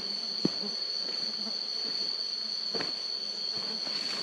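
Steady, high-pitched insect drone of a forest insect chorus, with a couple of soft thumps, the loudest about half a second in.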